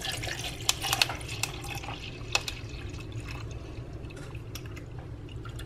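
Cold brew coffee poured from a bottle into a plastic cup over ice, a steady liquid pour with a few sharp clicks in the first couple of seconds.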